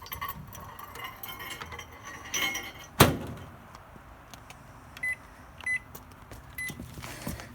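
Glass light bulbs clinking as they are set inside a microwave oven, then the door shut with a loud clunk about three seconds in, followed by three short keypad beeps as the microwave is started.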